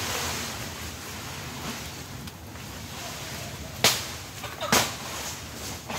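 Steady wind noise with two sharp knocks less than a second apart a little past halfway through.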